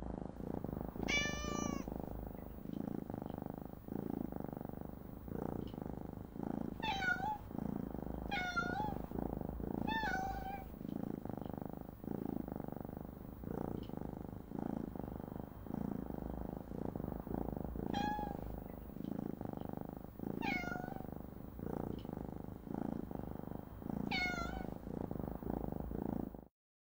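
Domestic cat purring steadily, with seven short meows scattered through; the sound cuts off suddenly near the end.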